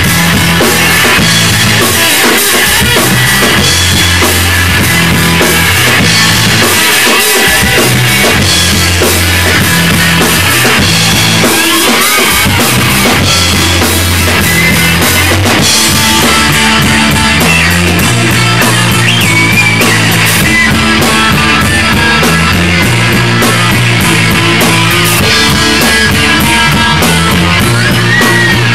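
A live rock band playing loud and without a break: electric guitars, bass guitar and a Yamaha drum kit with steady cymbals.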